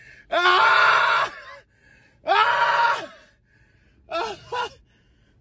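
A person screaming: two long, loud cries of about a second each, then two short cries near the end.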